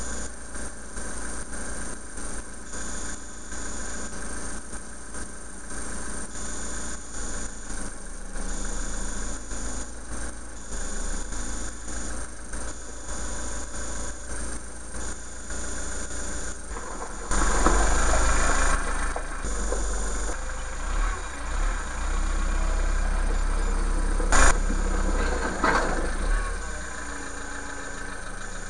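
Iseki TA375F tractor's diesel engine running as the tractor drives, heard through a car dashcam's microphone. About two thirds of the way through it gets louder and deeper as the tractor comes close, and a sharp click sounds a few seconds later.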